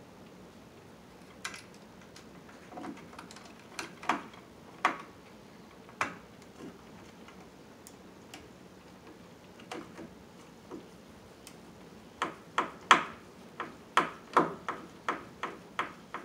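Scattered sharp clicks and taps, then a quick run of louder clicks, about two to three a second, near the end: a hand screwdriver working the mounting screws of a wall receptacle in its electrical box.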